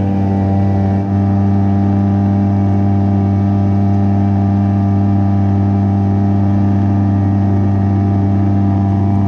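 HangKai 3.6 HP gas outboard motor running under way at steady throttle, one even engine note that holds its speed throughout.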